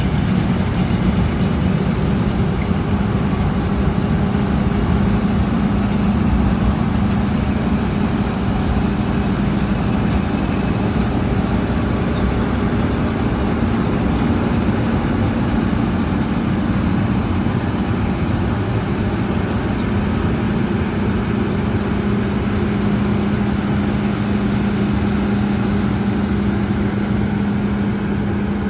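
Combine harvester running steadily while cutting wheat: a loud, even machinery noise with a constant low hum.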